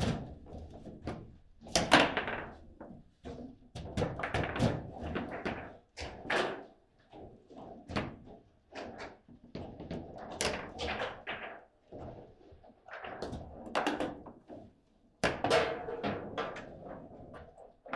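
Table football being played: irregular sharp knocks and thuds, some in quick clusters, as the ball is struck by the player figures and hits the table.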